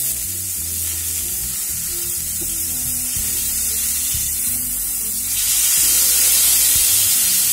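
Beef steak sizzling in a hot cast-iron skillet. About five seconds in, the sizzle gets louder as the steak is flipped over with tongs and its seared side goes back onto the hot pan.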